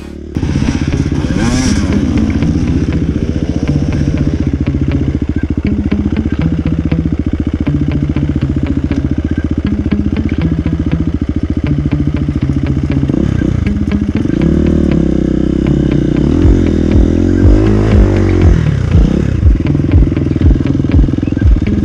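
Dirt bike engine running and revving up and down, with background music whose steady beat comes in over the last few seconds.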